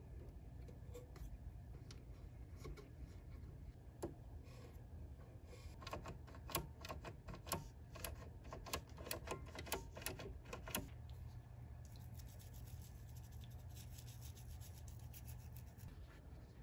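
Small clicks, taps and light scraping from hand tools and small metal parts being handled while a unit's front panel is dismantled. The clicks cluster in the middle, giving way to a faint run of fine rubbing ticks near the end, all over a low steady hum.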